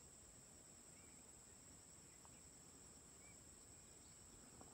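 Faint chorus of insects, a steady high-pitched trill, with a few faint short bird chirps.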